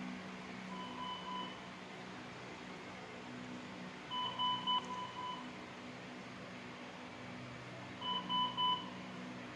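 Electronic beeping from hospital monitoring equipment: short groups of beeps recur about every three to four seconds, like an alarm. A steady low hum runs under them.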